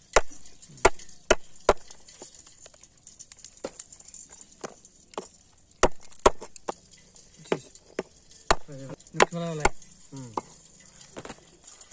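Meat cleaver chopping crab claws and legs on a wooden board: sharp, irregular knocks of the blade on the wood, coming in small bunches.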